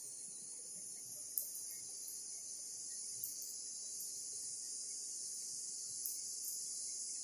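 Steady, high-pitched chirring of an insect chorus, such as crickets, with a few short sharp clicks, the loudest about a second and a half in.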